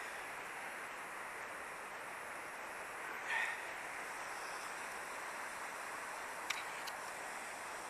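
Steady rush of river water running over rocks and a small weir. About three seconds in a brief louder sound rises above it, and near the end there are two sharp clicks.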